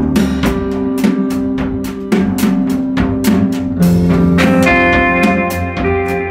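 Live jazz trio playing: guitar, double bass and drum kit, with steady cymbal strokes. Partway through, a held guitar chord rings out over the bass and drums.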